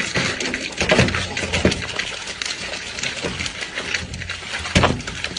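A man noisily biting and chomping into a whole watermelon, a dense run of crunching and tearing sounds with sharper cracks about a second in and near the end.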